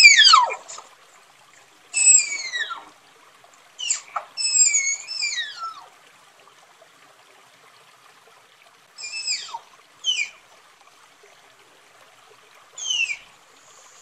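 Tapir calling: about seven high-pitched whistling squeals, each sliding steeply down in pitch, coming singly or in quick pairs with quiet gaps of a few seconds between bouts.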